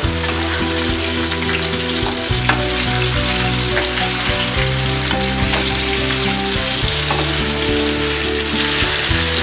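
Pearl spot fish pieces shallow frying in hot oil in a nonstick pan, a steady sizzle, while a spatula turns them over with a few light taps and scrapes on the pan. Background music with sustained low notes plays underneath.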